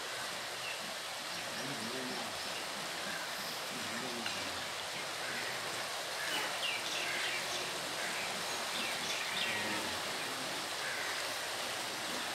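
Steady rush of a shallow river running over a stony bed and riffles, with a few faint chirps now and then.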